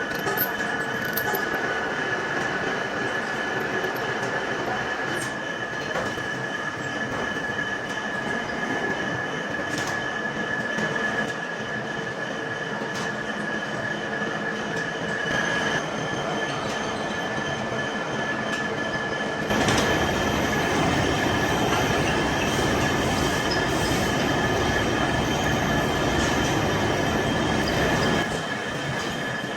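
Large metal lathe turning a heavy steel shaft: a steady high whine with grinding cutting noise beneath it. The noise grows louder and rougher about two-thirds of the way in, then drops back near the end.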